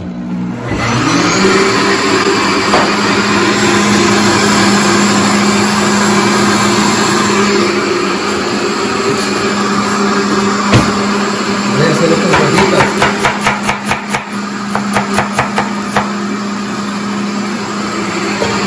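Countertop blender running, grinding salsa of tomatoes, jalapeño and garlic: it starts about half a second in and runs at a steady pitch. A little past the middle the sound shifts and a quick run of ticks and rattles goes on for a few seconds.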